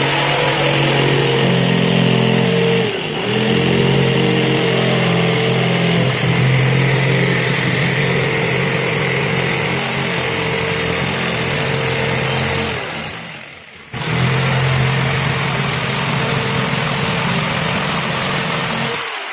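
Handheld electric jigsaw running steadily as it cuts through an MDF sheet. It stops for about a second around two-thirds of the way through, then starts again and runs until near the end.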